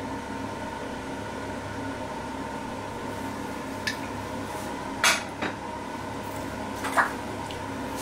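A few sharp clinks and knocks of kitchenware, the loudest about five seconds in and another near the end: a glass oil bottle handled and set down and a fork against a ceramic bowl, over a steady background hum.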